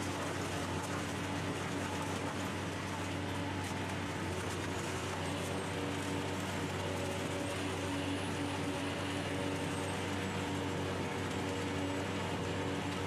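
Industrial car shredder running with a steady drone and hum while it tears a small car apart.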